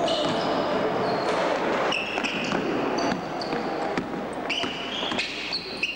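Basketball being played in a sports hall: shoes squeaking again and again on the court floor, with the ball bouncing.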